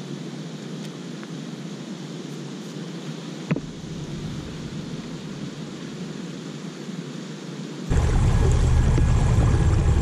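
Quiet outdoor ambience of wind and water around a fishing kayak, with a single sharp tap about three and a half seconds in. Near the end the sound jumps to a much louder rush of water and wind as the kayak travels across the lake.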